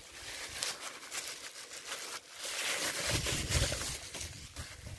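Rustling and clicking handling noises, uneven and crackly, with a low rumble of wind on the microphone from about two seconds in.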